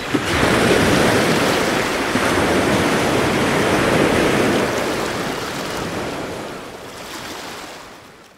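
Ocean surf washing in, a steady rush of breaking waves that swells up sharply just after the start and then gradually fades away toward the end.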